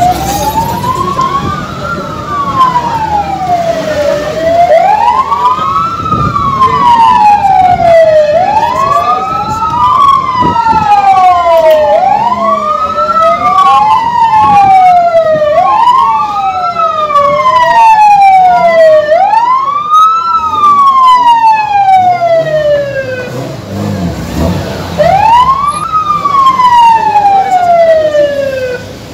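Emergency vehicle siren wailing, its pitch repeatedly rising and falling over a few seconds per cycle, at times with two wails overlapping, and a short break near the end before one last wail.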